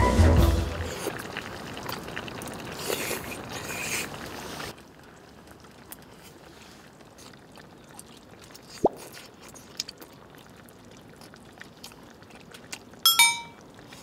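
Quiet eating sounds, with faint clicks of metal chopsticks against a small metal dish and one sharp ringing metallic clink about a second before the end. The first few seconds hold a louder rushing noise that cuts off abruptly.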